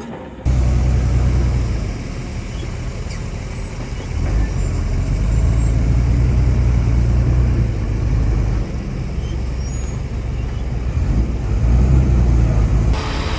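Heavy diesel engine of earthmoving machinery running and working, a deep rumble that swells and eases in strength, beginning abruptly about half a second in.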